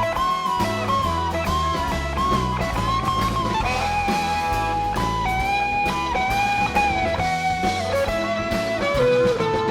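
Live blues-rock jam music: an electric guitar lead playing long, sliding and bending notes over bass and drums.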